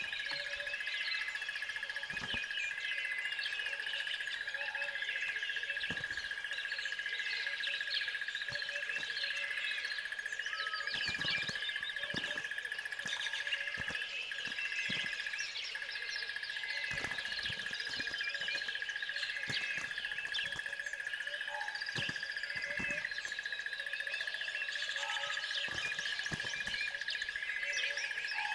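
Many songbirds chirping and trilling in a dense, steady chorus, over a continuous high even tone, with a few brief clicks.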